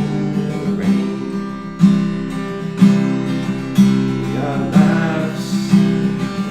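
Acoustic guitar strummed in steady chords, with a strong accent about once a second: an instrumental passage of a song.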